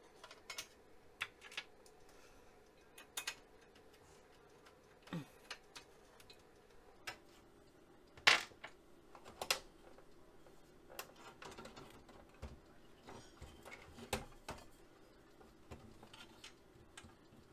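Scattered clicks, taps and light knocks from hands handling metal and plastic parts inside an opened Apple Lisa computer, with one sharper knock about eight seconds in.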